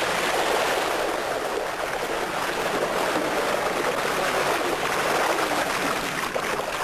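Steady churning and splashing of water as a mass of yellowtail thrash at the surface of a net pen at feeding.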